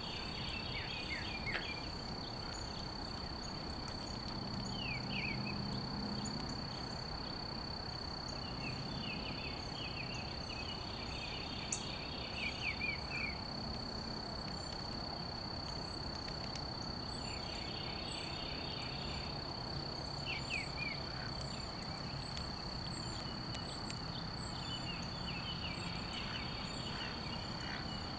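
Outdoor insect chorus: a steady high-pitched drone, with bursts of chirping trills every few seconds and a single click about twelve seconds in.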